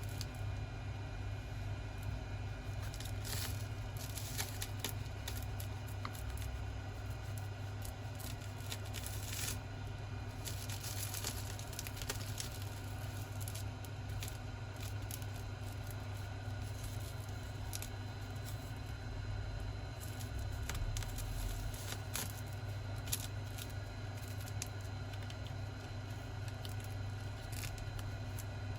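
Intermittent scraping and light clicks of a tool prying at a phone's glued plastic back cover, over a steady low hum.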